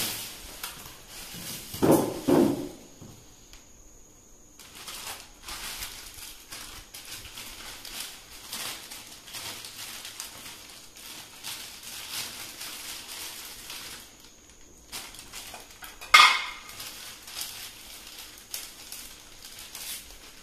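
Plastic packaging and bags rustling and crinkling as they are handled, with two knocks about two seconds in and a sharp clack a little past the middle.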